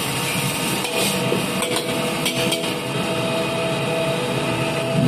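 Steady roar of a gas wok burner, with a few sharp metallic clinks of a utensil against the wok about a second in.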